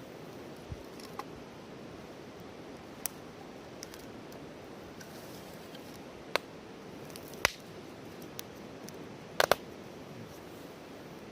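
Wood fire crackling: firewood snaps with scattered sharp pops over a low steady hiss, and a quick double pop near the end is the loudest.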